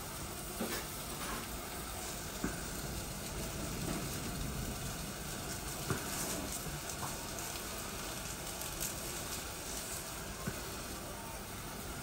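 Steady hiss of a gas burner heating a pot of water, with a few faint clicks and crinkles.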